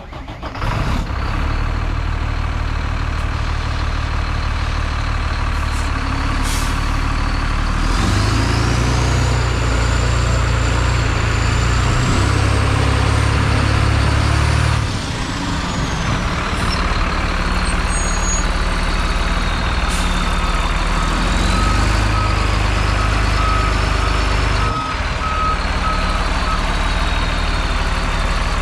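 Diesel engine of a 2007 Sterling quad-axle dump truck idling steadily, louder for a few seconds around the middle.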